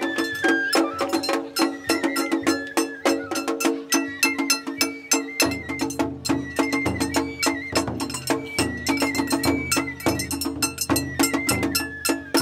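Japanese festival float music: children beating small shime-daiko drums with sticks in a fast, steady rhythm, with a bamboo flute playing a wavering melody above. A deeper drum joins about five and a half seconds in.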